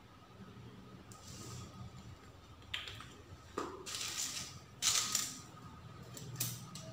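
A small clear plastic packet of embellishments being picked up and handled, giving several short crinkles and rustles, the loudest about five seconds in, with a sharper knock a little past halfway.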